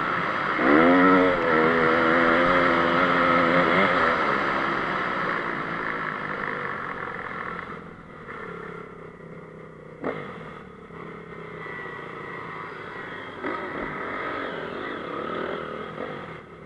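Honda CRF 250 motocross bike's single-cylinder four-stroke engine, heard from the bike, revving up sharply about a second in, running hard for a few seconds, then dying down to a much quieter low run as the bike slows. A sharp knock comes partway through.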